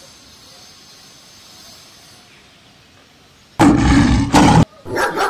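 A loud tiger roar sound effect about three and a half seconds in, lasting about a second and cutting off abruptly. A dog then starts barking in quick, repeated barks.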